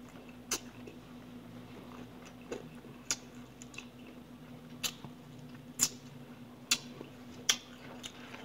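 Close-miked eating: chewing, with sharp crisp clicks and crunches about once a second, over a faint steady hum.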